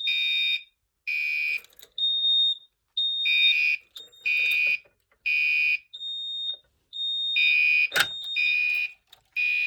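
Gentex fire alarm horns sounding in alarm off a 9-volt supply, set off by pulling a Fire-Lite BG-12 pull station. A buzzy horn blast and a steady, high piezo-like tone from the Gentex mini horn pulse on and off about once a second. A single sharp knock comes near the end.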